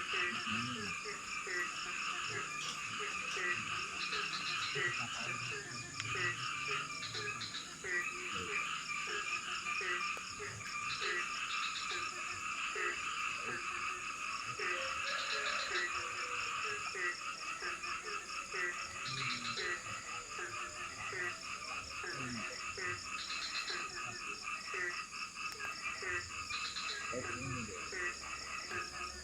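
Rainforest frogs croaking in a dense chorus of many overlapping short, repeated calls, over a steady high insect buzz.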